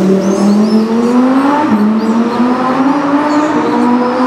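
Lamborghini Huracan Spyder's V10 accelerating: the engine note climbs, drops sharply at an upshift a little under two seconds in, then climbs again and levels off.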